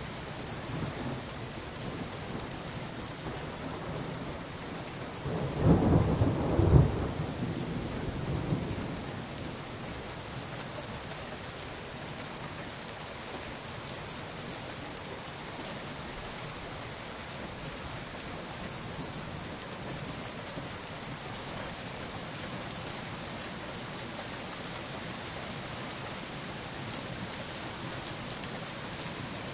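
Steady rain falling, with one loud clap of thunder about six seconds in that rumbles on for a few seconds before fading back under the rain.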